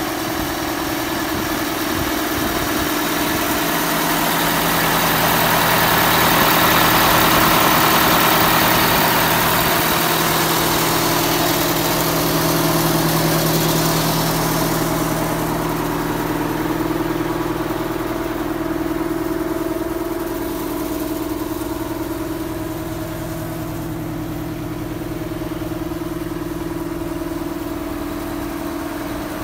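Oshkosh M1070 HET truck's diesel engine idling steadily with an even hum. It is loudest and hissiest in the first half, then quieter and duller from about halfway on.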